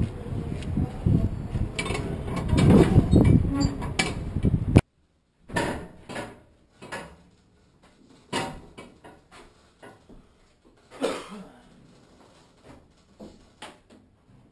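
Wind buffeting the microphone for the first few seconds. It cuts off suddenly, and then come scattered knocks and clunks of someone working at a door inside a shipping container being fitted out.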